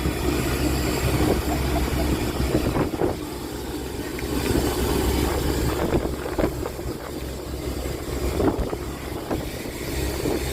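Fishing boat's engine running steadily, with wind on the microphone and scattered short knocks.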